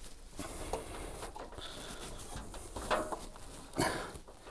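Rubber washing machine drive belt being stretched by hand round the drum pulley: scattered rubbing, scraping and light knocks of belt and hand against the pulley and plastic tub, with two louder scrapes about three and four seconds in.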